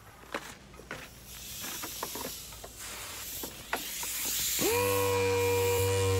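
Air-powered random-orbital sander wet sanding paint with 3000-grit paper: clicks and a rising hiss of handling and water, then about four and a half seconds in the sander spins up and runs with a steady whine.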